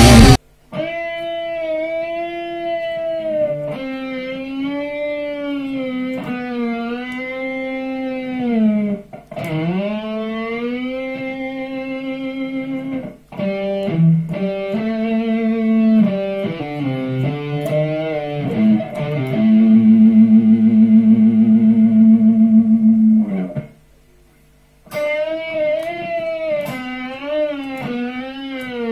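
Ibanez electric guitar playing a slow solo lead melody alone, with bent and sliding notes and vibrato. Near the end it holds one long note, breaks off for about a second, then carries on.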